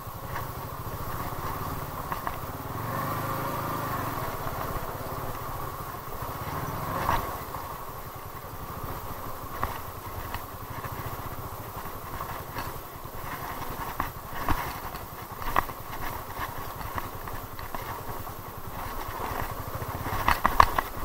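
TVS Apache RTR 200's single-cylinder engine running steadily as the bike rides a rough dirt track. Sharp knocks and rattles come now and then as the bike jolts over ruts and stones.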